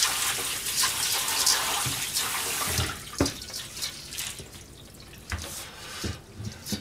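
Kitchen tap running for about three seconds as shredded cabbage is rinsed in a stainless mesh strainer, then shut off. A few short knocks follow as the strainer is handled.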